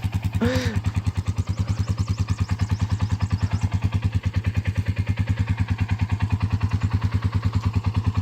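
Small engine running steadily with an even, fast pulse. A brief pitched call sounds about half a second in.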